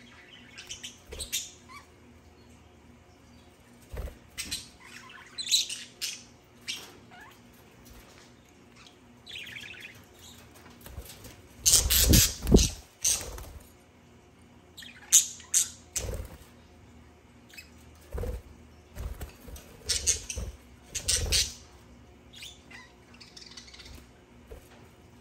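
Budgerigars chirping and squawking in short, scattered calls, with a loud flurry of wingbeats about twelve seconds in as one lands at the wooden nest box.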